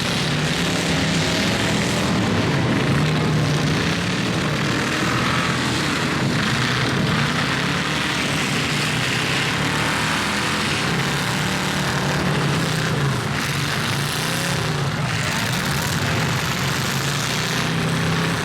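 Many demolition derby cars' engines running loudly together in a constant din, with engines revving up and down within it.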